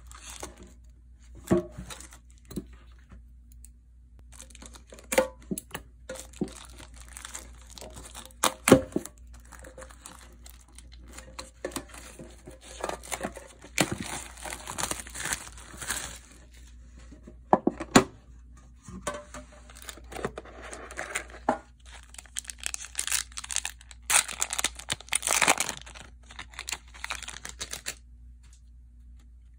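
Plastic shrink wrap being torn and crinkled off a metal collector's tin, in long spells of crackling, with several sharp clicks and taps of fingers handling the tin.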